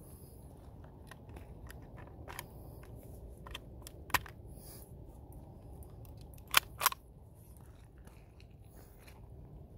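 Clicks and clacks of a Ruger .22 rifle and its BX-25 25-round magazine being handled. One sharper click comes about four seconds in, and two loud sharp clacks about a third of a second apart come near seven seconds.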